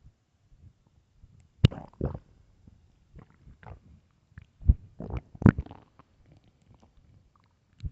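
Human stomach growling from hunger: a string of short gurgles, loudest a little under two seconds in and again around five seconds in.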